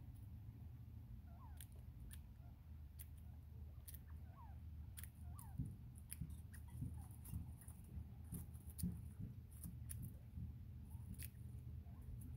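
Bobwhite quail pecking mealworms from an open hand: quick, irregular, sharp clicks of beak strikes, with a few soft short peeps in the first half over a faint low hum.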